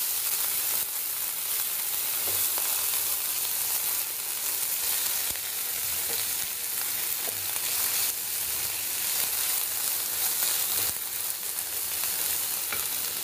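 Chopped onions with ginger-garlic paste sizzling in hot oil in a non-stick kadai as they are stirred, a steady frying hiss.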